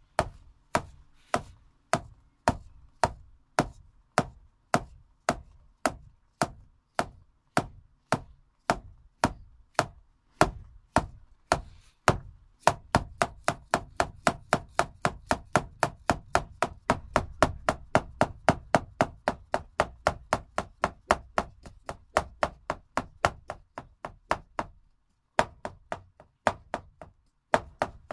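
Shaman frame drum beaten with a beater in a steady beat, about two strokes a second, speeding up to about four a second some twelve seconds in, with a low boom building under the strokes. Near the end the beat breaks off briefly and resumes at the slower pace.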